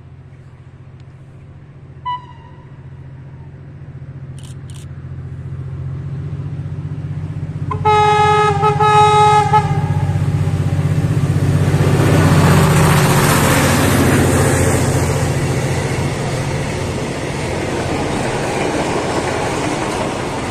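An approaching freight train's locomotive sounds its horn for about two seconds, a little under halfway in, over a low rumble that keeps building. It then passes close by with its container wagons, a loud rushing of wheels on rail that peaks just after the horn and carries on.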